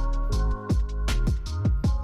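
Electronic background music with a deep, sustained bass and punchy drum hits that drop sharply in pitch.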